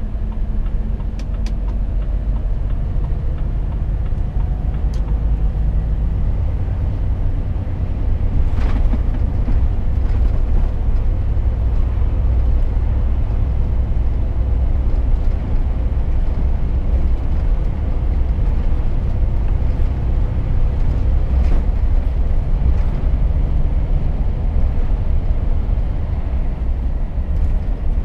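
In-cab sound of a Volvo FH truck on the move: a steady low diesel engine drone mixed with tyre and road rumble as the truck picks up speed.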